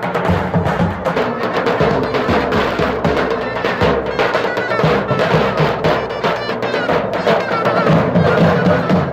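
Davul drums beating a steady halay dance rhythm, with a zurna playing a wavering melody over them.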